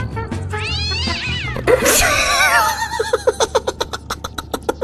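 A cat meowing and yowling in long calls that glide up and down in pitch, breaking about three seconds in into a rapid stuttering string of short cries, about seven a second, over background music.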